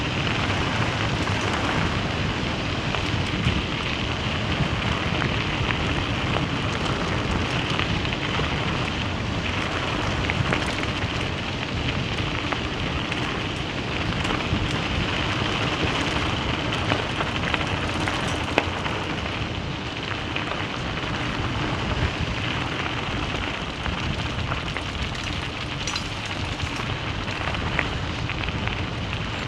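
Vehicle driving steadily on a gravel road: the continuous crunch and rumble of tyres rolling over loose stones, with scattered small stone clicks.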